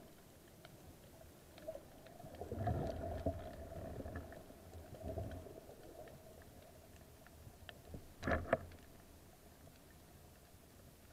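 Muffled underwater sound through a camera's waterproof housing during a dive: low rumbling water movement for a few seconds, a faint steady hum, and a short double knock about eight seconds in.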